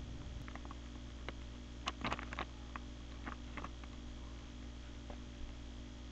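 Plastic CD case handled in the hands: a scatter of light clicks and taps, bunched together about two seconds in, over a steady low room hum.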